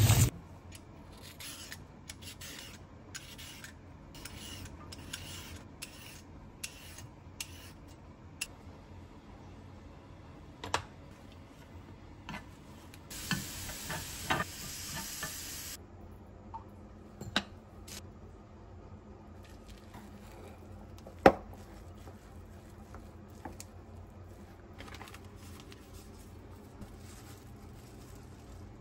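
Quiet kitchen cooking sounds: utensils clicking and knocking, and thin carrot strips sizzling as they are stir-fried with chopsticks in a rectangular frying pan, with a hissing stretch a little before halfway. A single sharp knock about two-thirds of the way through is the loudest sound.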